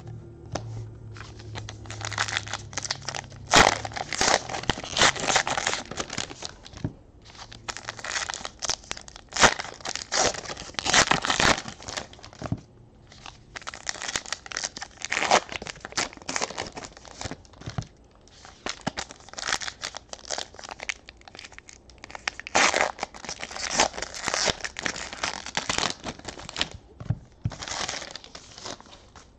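Trading-card pack wrappers, 2018 Panini Classics football packs, being torn open and crinkled by hand. The crackling and rustling comes in repeated bursts with short pauses between them.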